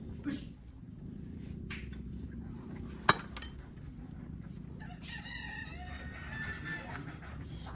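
A rooster crows once, a long call of about two and a half seconds starting about five seconds in, over a low steady hum. A single sharp knock, the loudest sound, comes about three seconds in.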